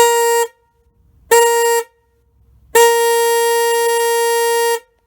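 Stock Harley-Davidson motorcycle horn sounding a single steady note in three blasts: two short honks, then a long one of about two seconds. Its sound is not very loud.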